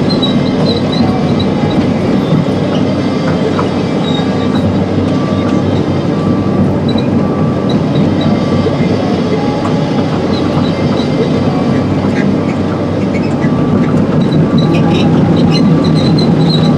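Excavator running, heard from inside the cab: a steady diesel engine and hydraulic drone, with the steel tracks clanking and giving short high squeals as the machine tracks over a rocky road to pack it down.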